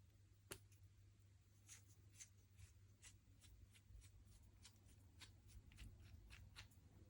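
Slime being squished and folded by hand, giving a string of small, irregular clicking pops. There is one sharper click about half a second in.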